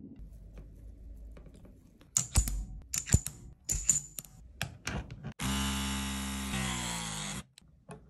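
Metallic clicks and clacks as the crimp head is handled and the copper lug set in the die, then the Klauke EK 30 ID ML battery-powered hydraulic crimping tool's motor and pump run for about two seconds, the pitch dropping near the end as the die presses the lug, and stop suddenly.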